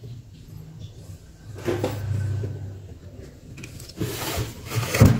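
Handling noise from an amplifier assembly on its aluminium heatsink being moved about on a table. There is rubbing and scraping about two seconds in, then a few clicks and a sharp knock near the end.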